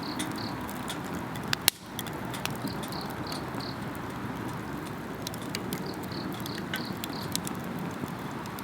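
Wood campfire crackling, with scattered sharp pops and one loud snap a little under two seconds in, over a steady low hiss of the burning fire. Insects chirp in short trains of three or four notes, repeating every few seconds.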